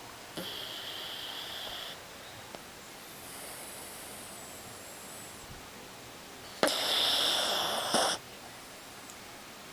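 Sleeping dog snoring: two noisy, breathy snores, the first moderate and the second louder, about six seconds apart.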